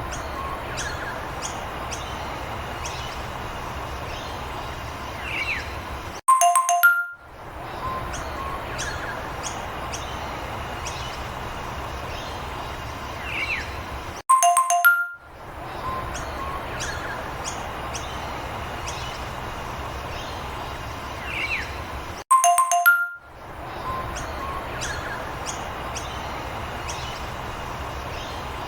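A short bell-like chime of a few tones, followed by a steady hissing background with faint bird-like chirps. The pattern repeats about every eight seconds, each time cut off by a brief silence.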